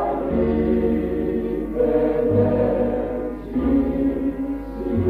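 Choir singing slow, held chords that change every second or so.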